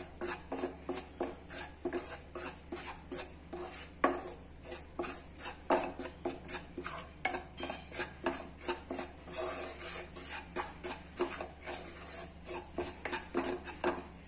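Wooden spatula scraping dry spice powder (coriander, chilli and garam masala) around a kadai in quick, even strokes, about three or four a second: the powders being dry-roasted on a low flame.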